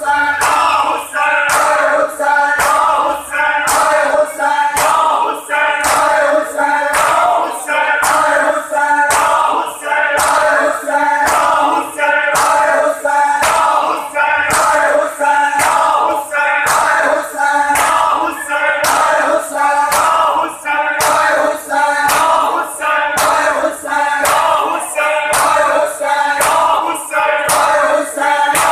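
Group of men chanting a noha (lament) in unison while beating their chests in matam, the hand slaps on bare chests making a steady beat of sharp slaps under the chant.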